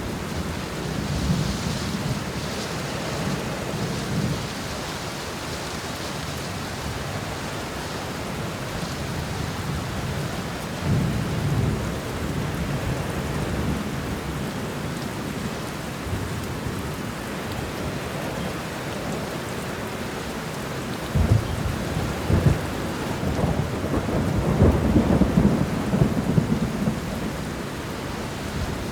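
Steady rain with thunder rolling in the background. Low rumbles swell a few times, loudest and longest in the second half, with a couple of sharper cracks there.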